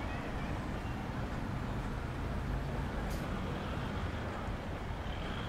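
Steady low engine hum under an even background hiss, with one short faint click about three seconds in.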